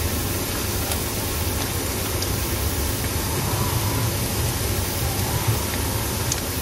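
Vegetarian burger patties frying in hot oil in a pan: a steady sizzle with a few faint pops.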